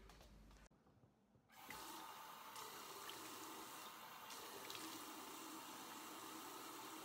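Water running from a bathroom tap into the sink while someone washes her face with her hands. It starts about a second and a half in and then runs steadily.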